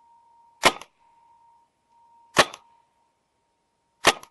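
A paintball marker firing single shots, three sharp cracks about a second and three-quarters apart, each followed by a brief smaller tick. A faint steady high tone runs underneath.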